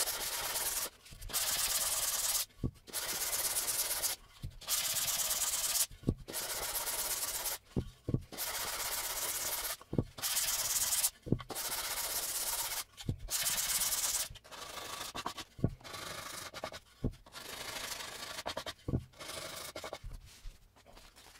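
220-grit sandpaper on a hand sanding block rubbed back and forth over a wooden cutting board: a series of hissing strokes about a second long, with short pauses and light knocks between them. The strokes get shorter and quieter in the second half.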